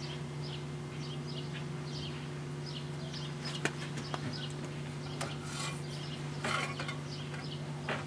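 A cloth rag wiping and rubbing inside a microwave oven, with a few light clicks and knocks. The microwave door swings shut with a click near the end. Underneath is a steady low hum, with faint chirping over it.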